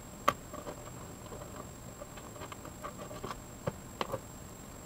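Bicycle chain links clicking and clinking as they are handled, with a sharp click about a third of a second in and a few more near the end.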